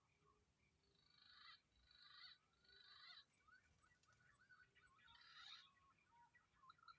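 Birds calling faintly with short whistled, gliding chirps, broken by four brief harsh bursts: three in quick succession after about a second, and one more around five seconds in.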